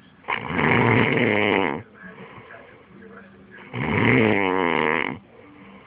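A person snoring: two long, loud snores about three and a half seconds apart.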